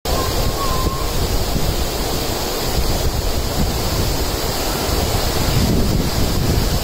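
Waterfall rushing steadily as heavy water pours over rock, with wind buffeting the microphone.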